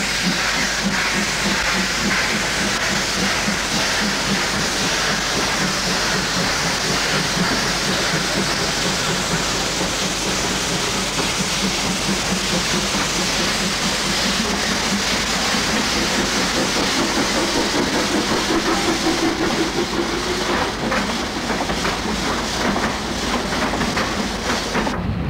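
Narrow-gauge Zillertalbahn steam train pulling out: a loud steady hiss of steam from the locomotive, then the coaches rolling past with quick clicks of wheels over rail joints in the second half.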